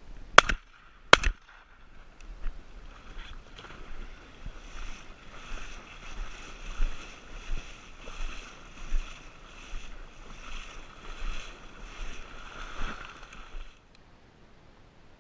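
Two shotgun shots in quick succession, under a second apart, then a long stretch of rhythmic splashing and swishing, as of something moving through water. The splashing cuts off shortly before the end.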